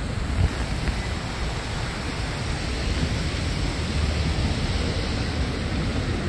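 Steady rushing outdoor noise with an uneven low rumble: wind on the phone's microphone mixed with road traffic at the terminal curb.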